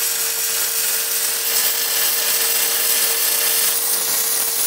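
Wire-feed (MIG) welding arc crackling and sizzling steadily as a bead is laid along a steel door's flat-bar seam.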